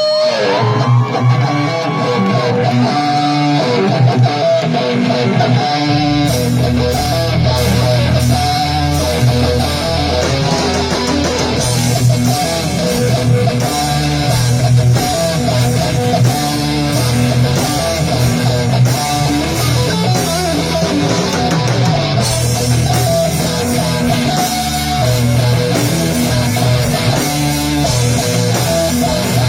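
Live rock band playing: an electric guitar line opens, bass and drums come in about six seconds in, and the full band with cymbals is going from about twelve seconds on.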